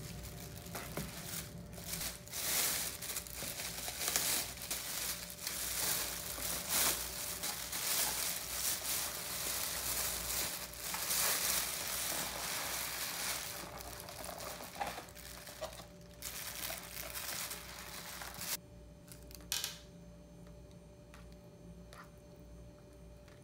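A thin plastic carrier bag crinkling and rustling as a cardboard takeout box is handled and unwrapped. The sound is dense and busy for most of the first eighteen seconds, then much quieter, with a few light taps near the end.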